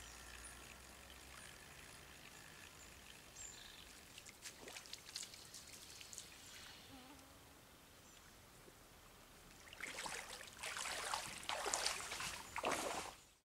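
Water sloshing and splashing, as from someone wading through shallow lake water, starting about ten seconds in and cutting off suddenly at the end. Before that there is only faint outdoor ambience with a few light clicks.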